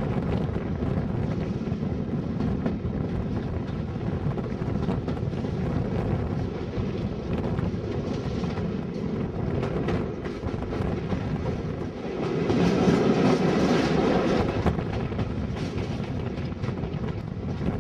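Locomotive-hauled passenger train coaches running at speed, a continuous rumble of wheels on rails, heard from an open coach window. The noise swells for a couple of seconds about two-thirds of the way through.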